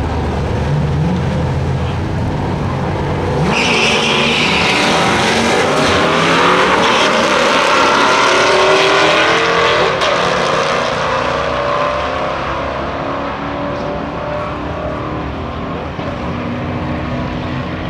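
Two drag-racing cars launching side by side from the line about three and a half seconds in, after a low idle rumble while staged. Their engines rev hard up through the gears in repeated rising sweeps, then fade as they run away down the strip.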